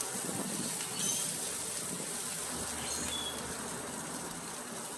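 Goat meat sizzling on a charcoal grill: a steady soft hiss.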